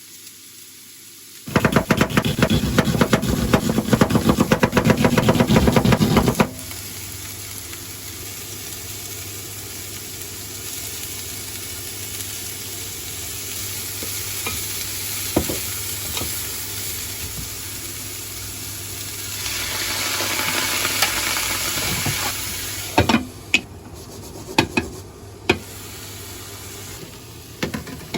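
Food sizzling in a frying pan, steady and swelling briefly in the later part. It is preceded by about five seconds of loud, rapid clattering strokes, and a few sharp clicks come near the end.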